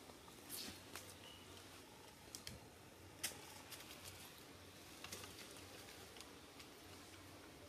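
Quiet forest background with a few faint, scattered crackles and snaps of twigs and dry leaves, the sharpest about three seconds in.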